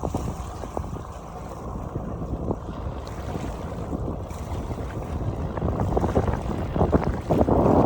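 Wind buffeting the microphone, an irregular low rumble that gusts harder near the end.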